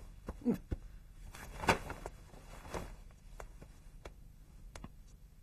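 Footsteps and scattered light knocks and rustles as a person moves about and climbs into a tent, with a brief short voice sound about half a second in.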